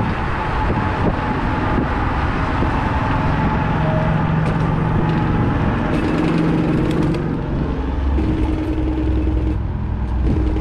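Kaabo Mantis electric scooter riding along: steady wind and tyre rumble with a faint motor whine that comes and goes. There is a spell of rattling and clicking about six seconds in, as it rolls onto a different path surface.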